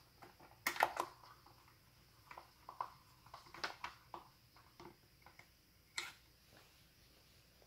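Small screws being driven into a plastic gel blaster housing with a hand screwdriver: scattered light clicks and knocks of the driver and parts being handled, the loudest cluster about a second in and a sharp click near six seconds.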